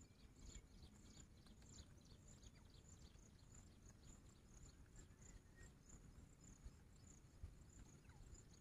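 Near silence, with faint insect chirping: short high-pitched pulses repeating evenly a few times a second over a low background rumble.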